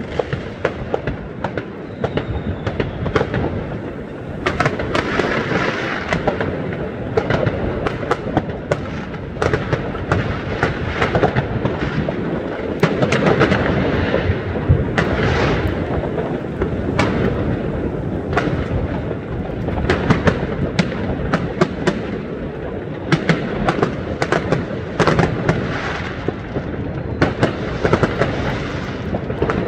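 Many fireworks going off at once: a dense, irregular run of sharp bangs and crackles from bursting aerial shells and firecrackers over a constant low rumble of more distant explosions.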